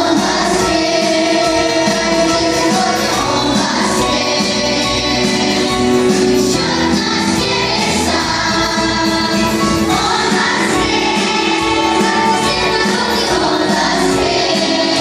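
A large children's choir singing a song with keyboard accompaniment.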